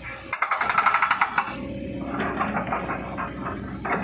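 Excavator-mounted hydraulic hammer breaker pounding rock: a rapid run of blows, about ten a second, starts about half a second in and lasts about a second, with the excavator's engine running underneath.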